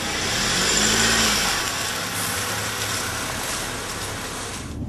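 A car running, engine and road noise swelling in, loudest about a second in, then holding steady until it falls away near the end.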